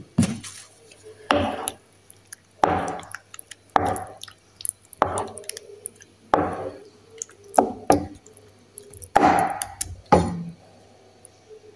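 A spoon stirring a thick cream sauce in a pan, in regular strokes about one a second.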